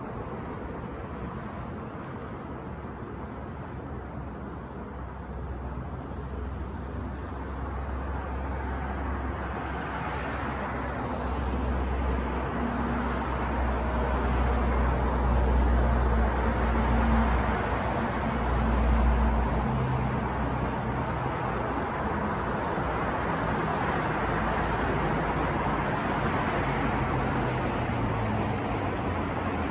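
City street traffic: a steady rumble of passing vehicles that swells through the middle as a louder vehicle's engine goes by, peaking about two-thirds of the way in, then settles back.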